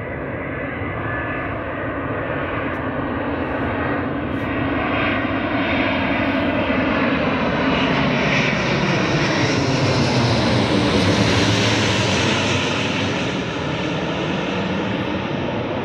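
Airbus A350's Rolls-Royce Trent XWB jet engines on approach with landing gear down, passing low overhead. The jet noise swells, peaks about eleven seconds in and eases as the aircraft passes, with whining tones sliding down in pitch.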